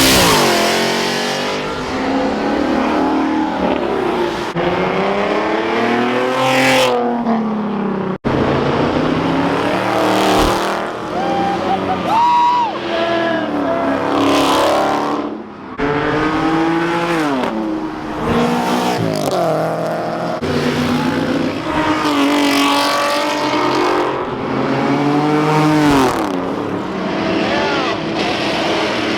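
Car engines revving hard and accelerating past one after another, their pitch climbing and falling again and again. There is a sudden break about eight seconds in.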